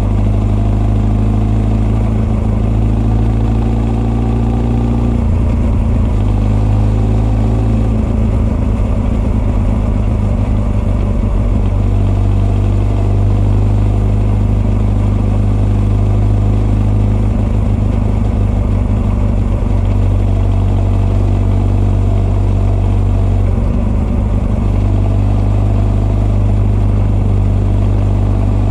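Honda CB1300 SF's inline-four engine running at a fairly steady engine speed, heard through its Keihin FCR41 carburettor intakes and r's gear Wyvern exhaust. The engine note shifts briefly about five seconds in and again near the end.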